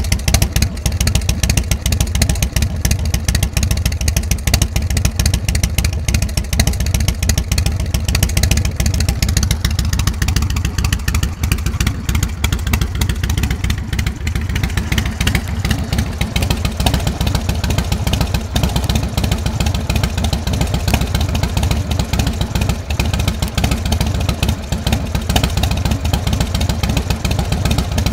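2006 Big Dog Ridgeback chopper's carbureted 117 cubic inch S&S V-twin idling steadily through its Supertrapp exhaust.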